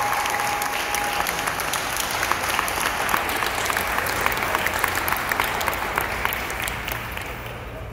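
Crowd applauding, many hands clapping, dying away near the end.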